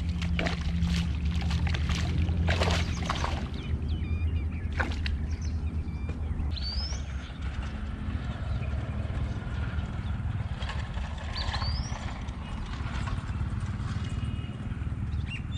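Steady low rumble with a few short, rising bird chirps, one about seven seconds in and one near twelve seconds in. A few sharp clicks and rustles come in the first five seconds.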